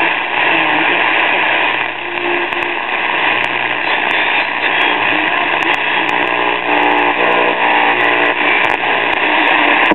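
Old six-tube AM radio playing a broadcast through its speaker, heavy with static and crackle, with faint programme sound under the noise and a steady low hum.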